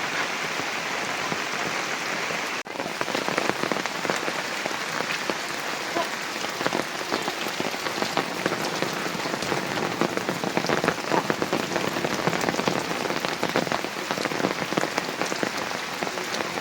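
Heavy rain falling, a dense steady hiss of water on surfaces. About two and a half seconds in it cuts out briefly, and after that individual drop hits stand out more often in the patter.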